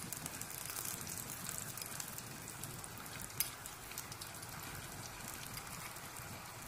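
Shallot-and-garlic sauce with sweet soy sauce and tomato sauce sizzling and crackling in a wok, a steady fine crackle. A couple of light clicks, one right at the start and one about three and a half seconds in.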